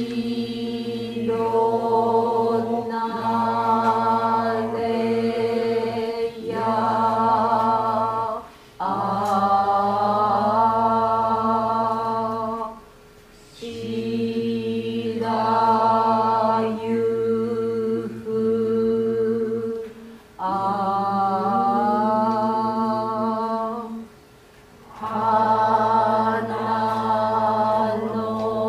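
Waka poem being chanted in the Reizei-school hikō style: voices draw each syllable out into long held notes, with a steady low note under a higher line whose pitch slides between notes. The chant comes in phrases several seconds long with short breaks between them.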